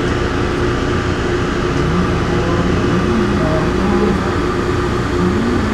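Taipei Metro C301 train with retrofitted inverter propulsion running between stations, heard from inside the car: steady running noise with inverter and traction-motor tones that shift up and down in pitch.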